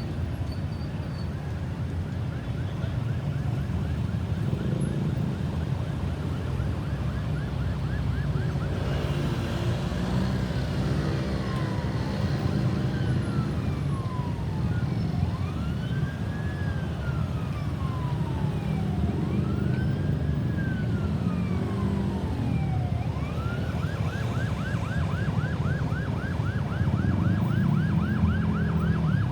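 Ambulance's electronic siren going through its modes: a fast yelp, then a slow wail rising and falling every few seconds, then back into the fast yelp near the end. The vehicle's engine and road rumble run underneath.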